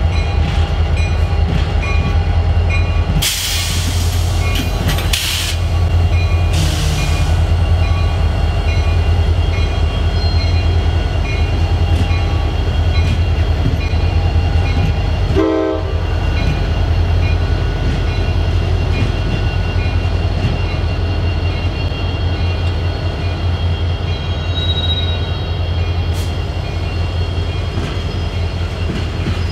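Two EMD diesel locomotives, an SD40-2 leading an SD70MAC, passing close by under load with a steady, loud two-stroke V16 engine rumble. There are two short bursts of hiss a few seconds in, and the rumble gives way to freight cars rolling past near the end.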